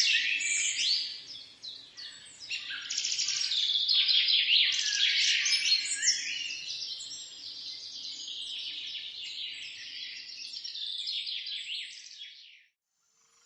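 A chorus of many birds chirping and singing at once, a dense tangle of short, quick, high calls; it fades out near the end.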